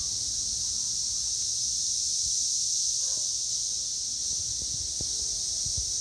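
Chorus of Brood X periodical cicadas in the trees: a steady, high-pitched drone that does not let up.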